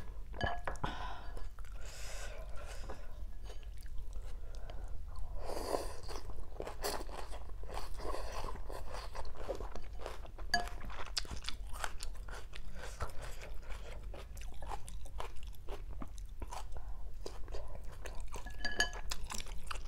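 A person chewing a mouthful of rice vermicelli and crisp raw greens, with many small wet crunches and crackles all through.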